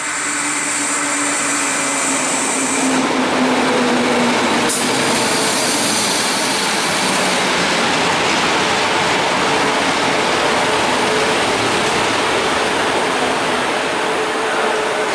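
A DB class 143 electric locomotive and its double-deck coaches passing close by, with a steady rumble of wheels on rail. A hum falls in pitch over the first few seconds, a high whine stops about three seconds in, and a single sharp click comes about five seconds in.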